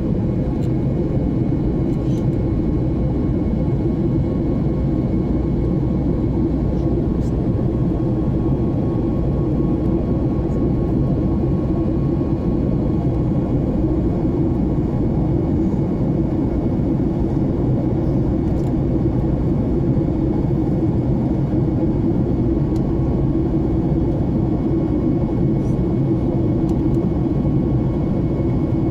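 Steady airliner cabin noise shortly after take-off: a constant engine and airflow rumble with a faint steady whine above it.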